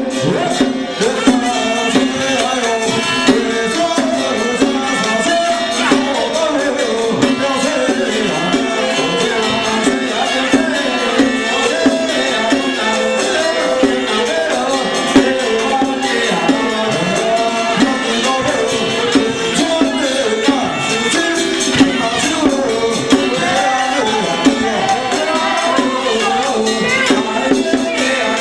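Traditional Taiwanese temple ritual music plays without a break: a wavering melody over a steady held tone, with rattling percussion and frequent sharp strikes.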